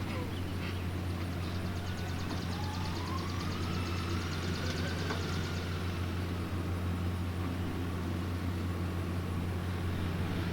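Farm tractor engine running steadily at constant speed. A faint whine rises and then falls a few seconds in.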